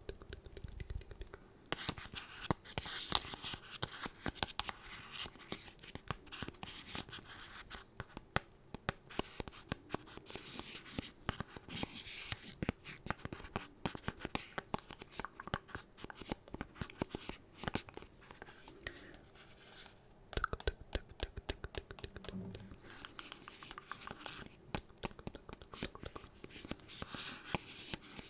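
Fingertips tapping and scratching on vinyl Funko Pop figures held close to the microphone: a quick, uneven run of small clicks and scrapes.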